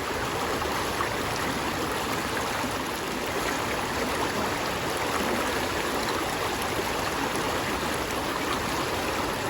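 Steady, even rushing noise, like running water, without breaks or sharp clicks.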